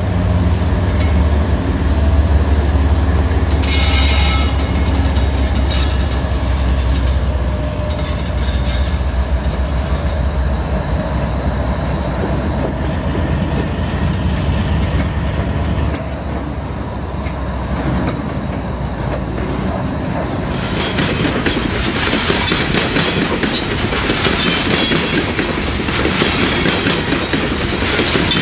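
HO-scale model coal train passing. Diesel locomotive engine rumble fills the first half, then the steady clatter of loaded coal hopper wheels on the track takes over.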